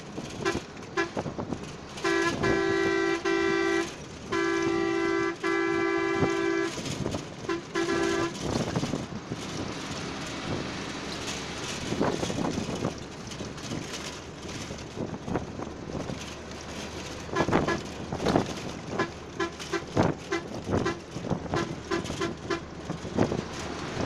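A vehicle horn honking: two long blasts about two and four seconds in, a few short toots around them, and a quick string of short toots later on, over the steady road and wind noise of a moving vehicle with scattered clattering knocks.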